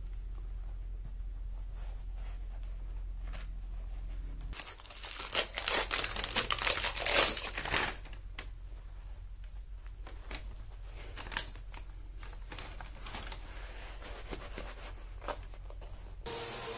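Paper release liner being peeled and pulled off double-sided carpet tape: a loud crackling, tearing rasp lasting about three seconds, starting near the middle. Lighter scattered rustles and taps follow as the carpet is handled and pressed onto the tape.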